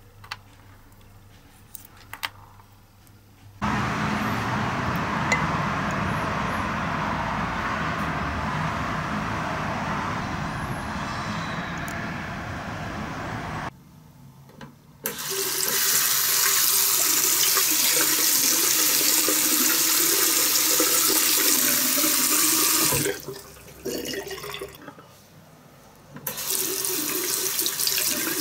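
Tap water running into a bathroom sink, starting and stopping in several long stretches, while a diecast car part is scrubbed with a toothbrush under the stream to rinse off paint-stripping gel. A few faint clicks of small parts being handled come before the water starts.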